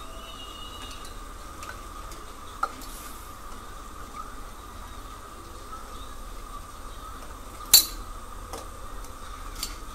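Steel tongs clinking against a steel mesh strainer and plastic bottle parts steaming over boiling water: a light clink about two and a half seconds in and a loud sharp one near the end, over a steady hiss of the boiling pot.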